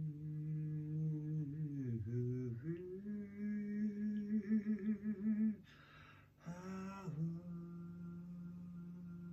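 A voice humming long, wordless held notes, gliding between pitches and wavering on one, with a quick breath in about six seconds in before a steady low hum.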